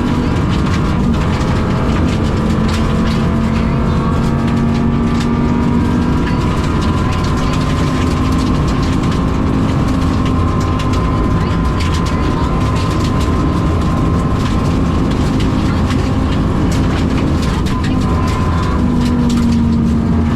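Rally car's engine and dog-box gearbox, heard from inside the cabin, held hard at high revs on a flat-out stage, with many short sharp ticks and pops over the steady engine note. The engine is running with a bad misfire.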